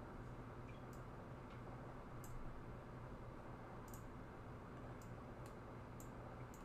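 Computer mouse clicking: about seven faint, sharp clicks at irregular intervals as objects are selected and dragged, over a steady low hum.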